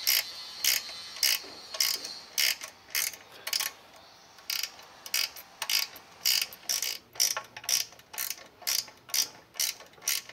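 Small ratcheting wrench clicking as it tightens a nylon-insert lock nut, a steady run of sharp clicks at about three a second.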